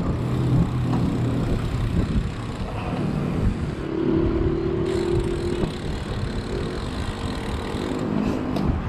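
Road noise heard from a moving bicycle: wind rumbling on the microphone and motor traffic on the road, with a steady hum for about a second and a half, around four seconds in.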